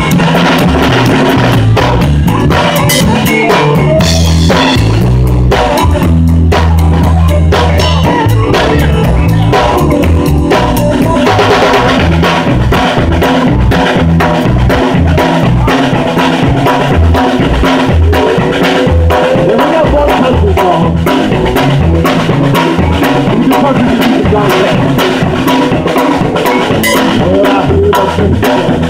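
Live rock band playing: drum kit, electric bass and electric guitar, heard close to the drums, with held bass notes at first and a fuller, busier beat with cymbals from about eleven seconds in.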